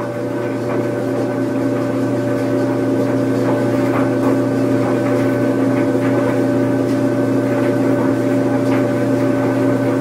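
Washing machine running: a steady motor hum, with faint small ticks of rattle over it.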